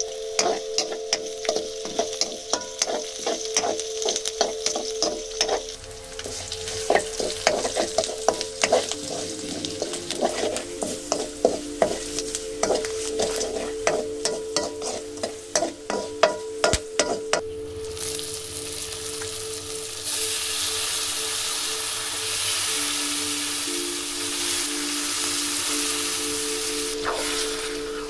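A ladle scraping and tapping against an iron wok in quick, irregular strokes as onions, green chillies and greens are stir-fried in oil. About two-thirds of the way through the strokes stop and a loud, steady sizzle takes over as the pork goes into the hot oil.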